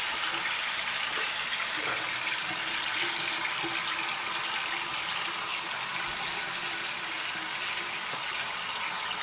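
Water running steadily from a sink tap into the basin.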